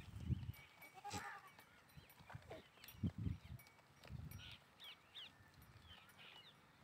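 A single bleat from a grazing flock of goats and sheep about a second in, with short high bird chirps later on. A few low dull thuds, the loudest sounds, come at the start and about three seconds in.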